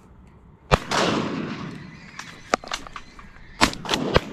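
12-gauge shotgun shots: one loud report about three-quarters of a second in with a long echo behind it, a fainter crack midway, then a quick volley of two or three shots near the end.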